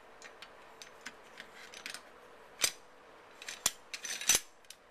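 Metal-on-metal clicks of an M1 Garand's steel bolt and operating rod being fitted into the receiver by hand: light scattered ticks, then sharper clicks about a second apart in the second half, the loudest cluster near the end.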